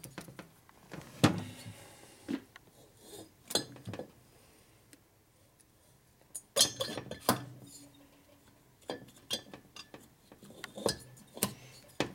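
Metal parts clinking and knocking as a Harley Evolution cylinder is worked down over its piston onto the crankcase studs: a few sharp metallic clinks at irregular intervals, the loudest about a second in, with quiet gaps between.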